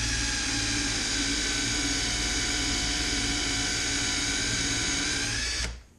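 Cordless drill running at a steady speed in a handheld drill-press guide, boring a countersink into MDF; the bit cuts slowly. The drill stops abruptly near the end.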